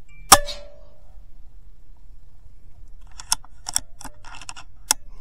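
A .22 DAR Gen III PCP air rifle fires once: a sharp crack with a short metallic ring after it. About three seconds later come several quick clicks and clacks, the last of them sharp.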